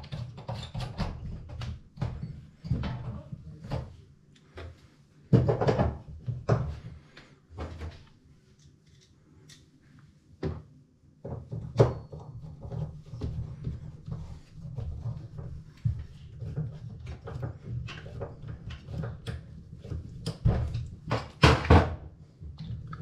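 Scattered knocks and clatter of hard objects being handled, with a few sharper bangs, over a steady low hum.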